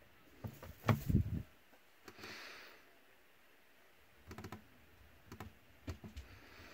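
A cluster of knocks about a second in as a power bank is handled on a desk, then a few small scattered clicks from a laptop touchpad.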